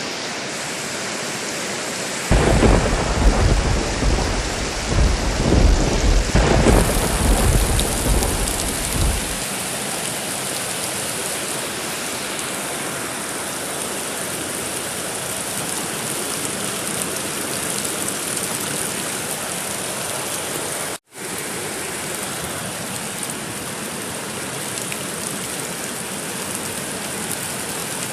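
Steady rain with a long rolling thunderclap that starts about two seconds in and dies away some seven seconds later. The sound drops out for an instant about two-thirds of the way through.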